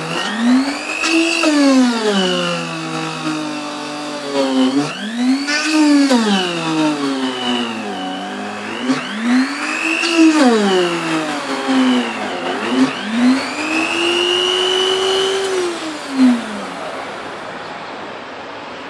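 Electric drill motor in a homemade wooden lever drill press, boring into wood: its pitch repeatedly sinks as it slows under the load and climbs back as it speeds up again. It winds down and stops near the end, just after a short knock.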